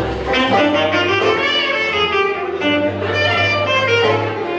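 Traditional jazz band playing live, horns carrying the melody over a steady bass line.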